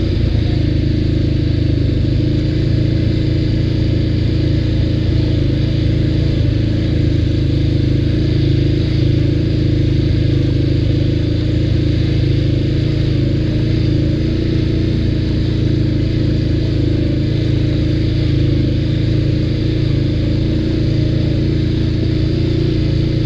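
ATV engine running steadily under way, holding an even pitch with no revving up or down.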